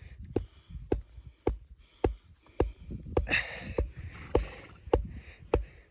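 A stake for tethering a horse being hammered into the ground: about ten steady strikes, roughly two a second, each with a short ring.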